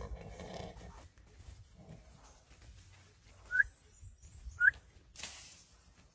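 A grunting sound fades out in the first second, then two short, sharp rising whistle-like squeaks about a second apart, the loudest sounds, followed by a brief hiss.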